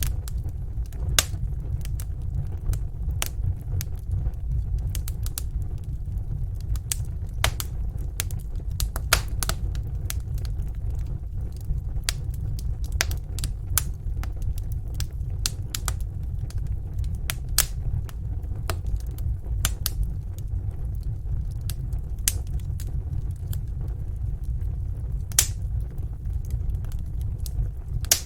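Wood fire crackling in a fireplace: a steady low sound of the flames with irregular sharp pops and snaps, a few each second.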